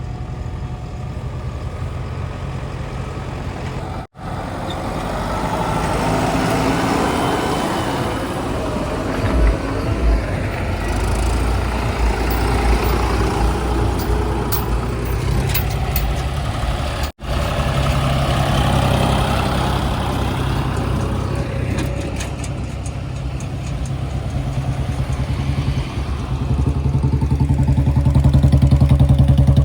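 Heavy diesel machinery engine running steadily, with mechanical working noise through the middle and the engine growing louder near the end. The sound drops out abruptly twice.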